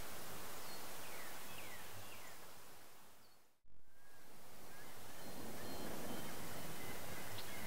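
Outdoor ambience: a steady breezy hiss with a few faint bird chirps. It fades out and back in about three and a half seconds in.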